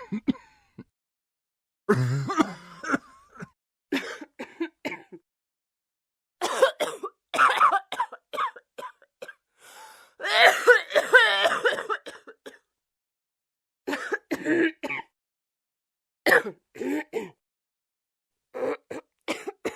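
Human coughing and throat clearing in about seven separate bouts of short hacks, each bout cut off into dead silence before the next. The longest bout comes near the middle.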